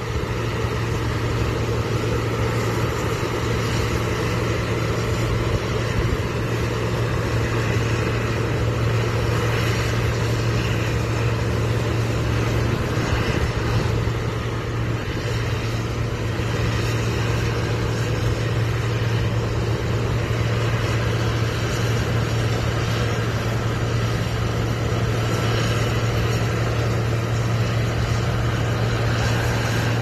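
An engine running steadily, a constant low hum with no change in speed.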